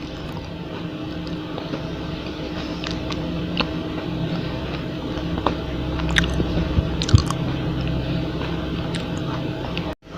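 A person chewing and biting a crispy chocolate roll close to the microphone, with scattered small crunches over a steady low hum. The sound cuts out for a split second near the end.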